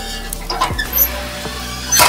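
Background music, with a short metal squeak as the hinged steel feed door of a rocket stove is swung shut.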